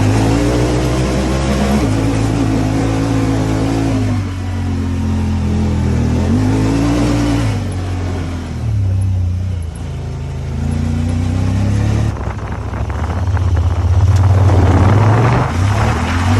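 Honda Talon 1000R's parallel-twin engine being driven hard, its revs rising and falling several times as the throttle is worked on and off, with a rougher, noisier stretch near the end.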